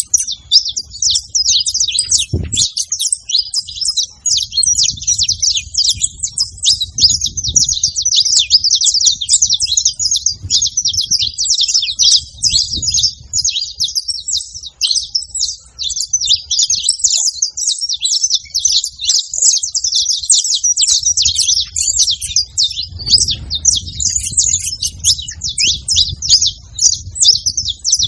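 A group of saffron finches chirping and singing at once in a dense, unbroken chatter of short high notes.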